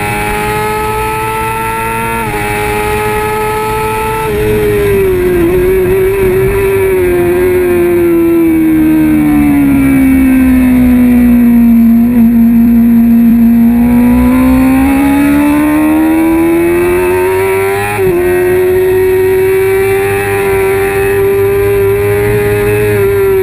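Kawasaki ZX-6R 636 inline-four engine at racing speed, heard from on board over wind rush. The revs drop at a gear change a few seconds in, then fall slowly and rise again through a long corner. There is another upshift late on, after which the engine holds steady.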